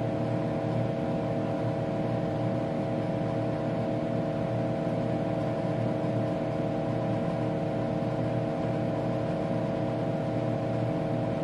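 Steady machine hum with several even tones, unchanging throughout, from a running Tektronix 4054A computer and its cooling fan.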